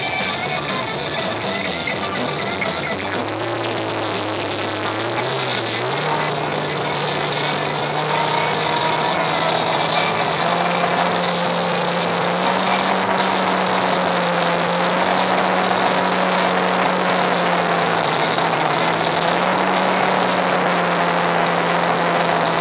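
Boat motor running: its pitch rises about three to six seconds in as the boat speeds up, then it holds a steady, slightly wavering drone under the hiss of moving water and wind.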